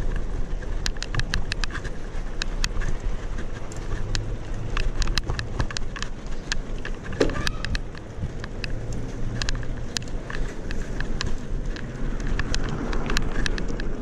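Bicycle rolling over a stone-slab pavement: irregular sharp clicks and rattles as the wheels cross the slab joints, over a steady low rumble of tyre and wind noise.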